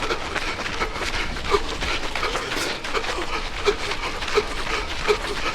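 A runner's laboured breathing with a short, squeaky wheeze on each breath, repeating about every three-quarters of a second: a wheezing airway that a fellow runner thinks should be checked out.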